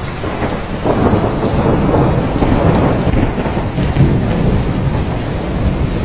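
Steady heavy rain with a roll of thunder that swells about a second in and rumbles on for several seconds before easing off.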